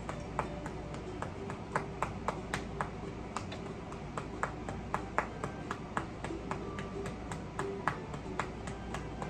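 A string of sharp, light clicks, unevenly spaced at about three a second, over a low steady hum.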